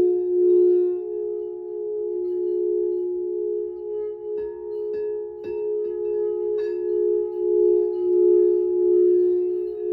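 Singing bowls ringing together, two low tones held steadily with a slow pulsing waver. A few light strikes land around the middle, one adding a higher ringing tone.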